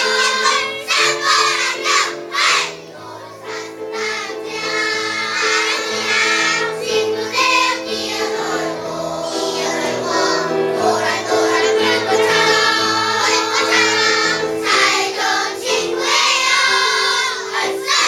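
Kindergarten children's choir singing together, with sustained instrumental accompaniment underneath.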